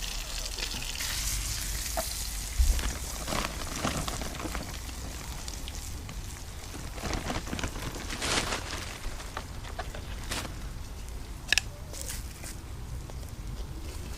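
Beef burger sizzling on hot smouldering coals of whiskey-soaked barrel wood, a steady hiss broken by a few sharp crackles and pops.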